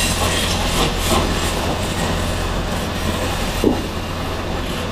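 Motor-driven wood lathe running with a steady low hum while a hand-held gouge cuts a spinning wooden charpai leg, giving a continuous rough scraping of wood being shaved. One short sharp sound about three and a half seconds in.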